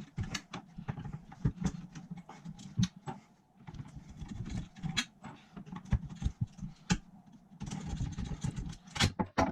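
Sped-up sound of hand work on a PC case: a quick, irregular string of clicks and knocks from a screwdriver and hands taking the case fans off a water-cooling radiator, over a low rumble.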